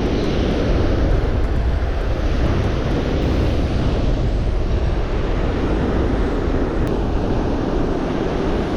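Strong gusting wind buffeting the microphone, a steady rumbling rush.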